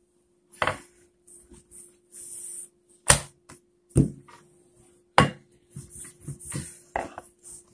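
Wooden rolling pin knocking on a granite countertop while pie dough is rolled out: about six sharp knocks at uneven intervals, the loudest about three and five seconds in.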